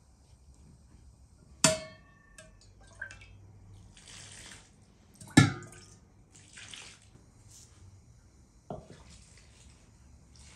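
A wooden spoon knocks sharply against an enamel basin three times; the second knock is the loudest, and the first two ring briefly. In between come short splashes of water being poured into the flour.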